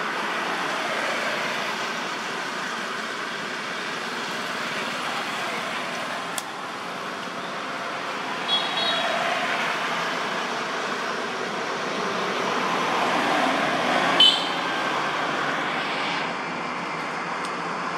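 Steady outdoor background noise, with a short high squeak about halfway through and a louder one about three-quarters through.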